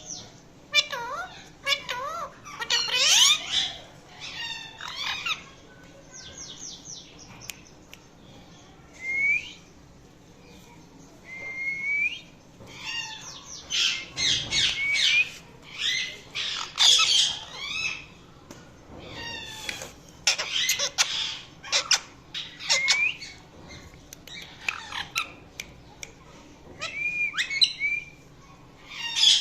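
Indian ringneck parakeet calling: bouts of harsh, rapidly repeated screeching calls broken by short rising whistled chirps, with brief pauses between bouts.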